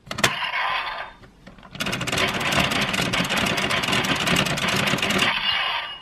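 DX Geartlinger toy blaster with a Sentai Gear being loaded: a sharp click as the gear goes in, then a long run of very fast clicking whir that cuts off suddenly.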